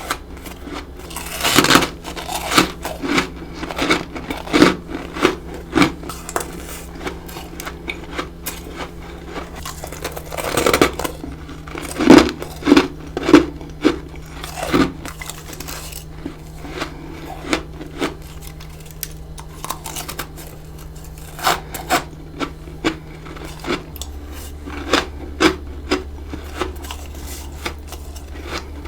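Close-miked crunching bites of freezer frost, sharp crisp crunches in clusters with short pauses between, over a faint steady low hum.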